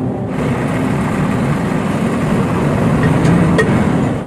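A heavy engine running loudly and steadily, growing a little louder, then cutting off suddenly near the end.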